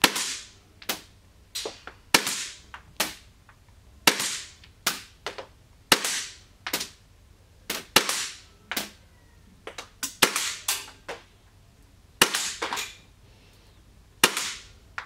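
Marushin/Cybergun Five Seven CO2 gas-blowback airsoft pistol firing single shots through a chronograph. Sharp cracks come about once a second, sometimes two in quick succession, with fainter clicks in between.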